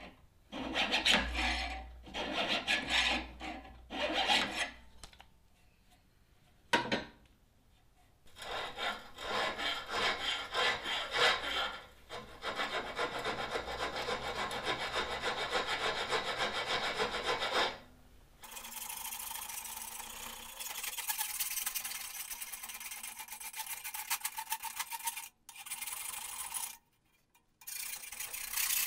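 Hand file scraping back and forth across the steel cutting jaws of farrier hoof nippers held in a vise, sharpening the edges. Short runs of strokes at first, a brief pause with a single click, then a long steady run of fast, even strokes.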